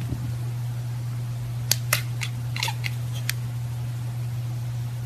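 A steady low hum with about half a dozen sharp, irregular clicks from about a third of the way in.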